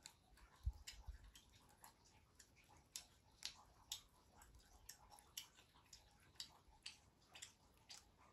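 Near silence: room tone with faint, irregular clicks, about one or two a second.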